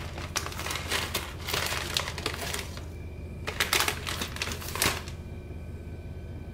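Plastic film packet of Samyang instant ramen crinkling as a hand digs into it and pulls out a chunk of the dry noodle block, with brittle crackling. There are two bouts of rustling, and they stop about five seconds in.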